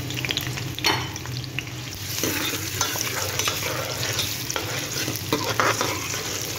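Freshly added sliced onions sizzling in hot oil in a steel pot while a steel ladle stirs them, scraping and clinking against the pan. The sizzle grows louder about two seconds in.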